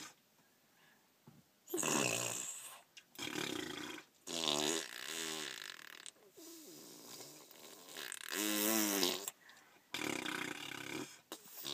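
Imitation fart noises made by a small child and a man: about seven short buzzy blasts with pauses between, some wavering up and down in pitch.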